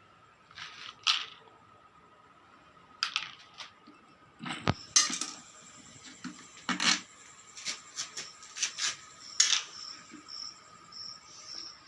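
Scattered metallic clicks and knocks of hand tools working the nuts on a fan's metal back panel during disassembly, about a dozen irregular taps and clanks with pauses between them.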